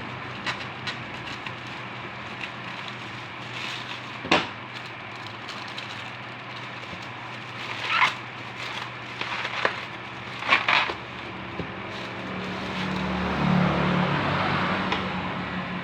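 Packaging of a replacement phone LCD being handled: scattered short crackles and clicks, the sharpest about four, eight and ten to eleven seconds in, over a steady background hum.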